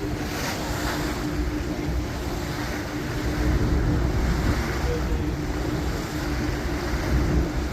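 Wind buffeting the microphone over the tour boat's engine running steadily with a constant hum, and water rushing past the hull.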